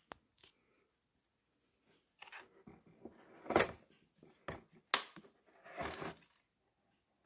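Handling noise of a cordless reciprocating saw and its battery pack in a hard plastic carry case: irregular plastic clicks, knocks and rubbing, with a sharp click just after the start and another about five seconds in. The saw's motor does not run.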